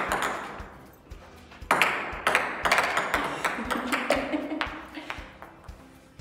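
Ping-pong ball bouncing on a table tennis table: sharp clicks that ring on in the room. One bounce comes at the start and another about two seconds in, then the bounces come quicker and quicker as the ball settles.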